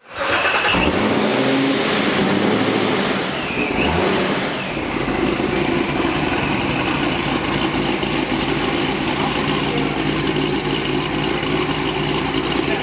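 A car's V8 engine running hard, with a couple of short changes in pitch in the first few seconds before it settles into a steady drone.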